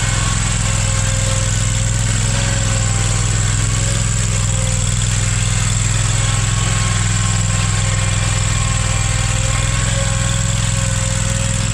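An engine running steadily at idle, an even low drone with no revving.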